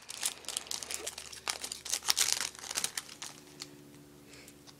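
Foil wrapper of a trading-card pack crinkling and crackling as it is torn open and handled, with the cards then being pulled out. Busy crinkling for about three seconds, then much quieter.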